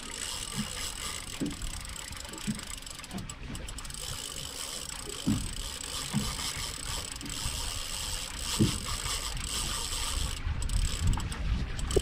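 Daiwa Saltiga spinning reel working under heavy load from a hooked fish, its gears and drag whirring steadily, with scattered low thumps.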